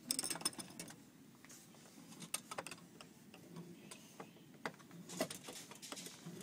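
Irregular light clicks and taps, a quick cluster at the start and a few scattered ones after, over faint low background noise.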